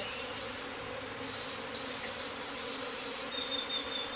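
A swarm of honeybees buzzing in a steady hum around a hive opened for inspection. A brief high squeak comes about three seconds in.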